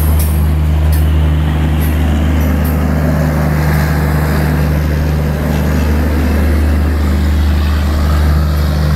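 Diesel generator sets of an LHB end-on-generation power car running with a steady low drone as the car rolls slowly past, over the noise of wheels on rails.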